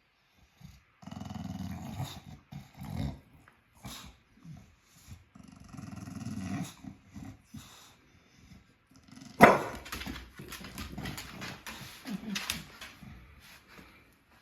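Bulldog growling in short, rough bouts, with a sudden loud outburst about nine seconds in, followed by more uneven grumbling.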